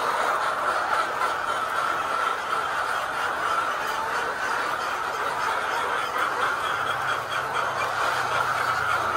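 A large flock of layer hens clucking and chattering continuously, a dense steady din of many birds at once.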